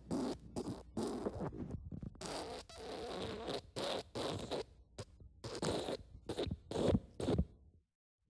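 Fart sound effect: a long, sputtering string of short raspy bursts that stops about seven and a half seconds in.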